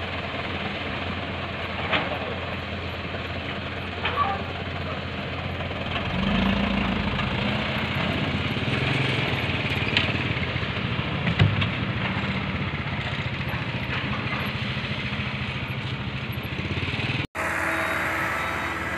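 Heavy diesel engine of earthmoving machinery running steadily, with a few sharp knocks and clanks. The engine note swells about six seconds in, and the sound changes abruptly near the end.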